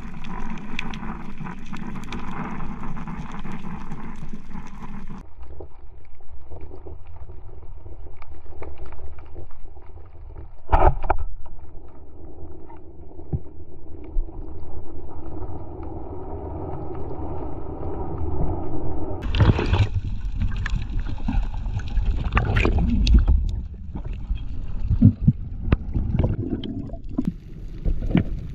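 Muffled underwater noise picked up by a diver's camera, with a single sharp crack just before eleven seconds in as the band-powered speargun fires at a grouper. In the last third the water noise is louder, with many clicks and knocks.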